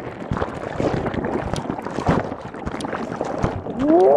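Rough typhoon-swell surf: water sloshing and splashing irregularly around a camera held in the waves.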